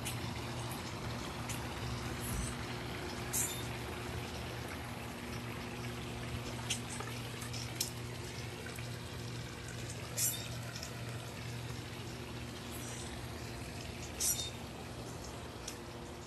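Steady rush of running water over a low steady hum, easing slightly near the end. A few short, sharp hissing clicks break through.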